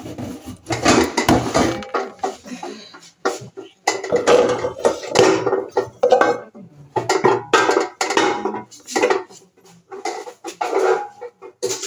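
Metal cooking pots from a new cookware set clanking and scraping against each other as they are taken apart and handled, in irregular bursts with some ringing.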